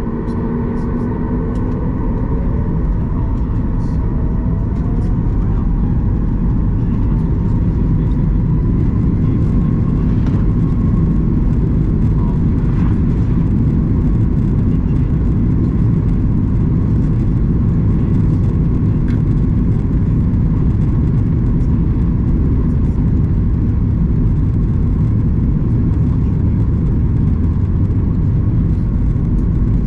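Boeing 737 MAX 8's CFM LEAP-1B engines spooling up to takeoff thrust, heard from inside the cabin. A whine rises in pitch over the first several seconds and then holds steady over a loud, steady rumble.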